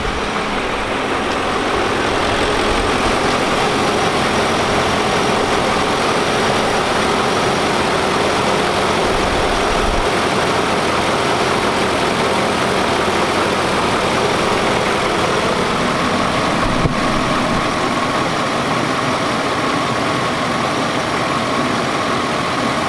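BMW E39 M5's V8 engine idling, with the replacement variable-speed auxiliary electric fan spinning in front of the radiator, a steady rush of air over the engine hum. A single click about 17 seconds in.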